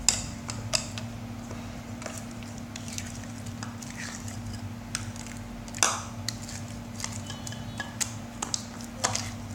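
Slime being stirred in a bowl with a stirrer: scattered clicks and knocks of the utensil against the bowl and soft sticky sounds, over a steady low hum.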